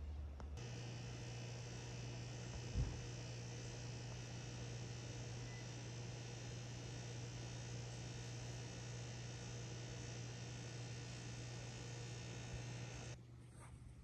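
A steady low electrical or machine hum with a faint hiss over it, starting just after the beginning and cutting off abruptly near the end. A single soft knock comes about three seconds in.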